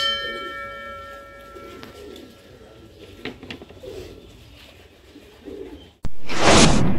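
A metal temple bell struck once, ringing with several clear tones that fade over about two seconds, with pigeons cooing softly after. About six seconds in, a loud rushing whoosh cuts in suddenly.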